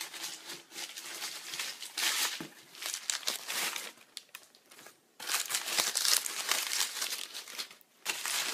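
Crumpled packing material being pulled out of a cardboard box by hand, crinkling and rustling in bursts. It pauses briefly about halfway through, and is loudest in the second half.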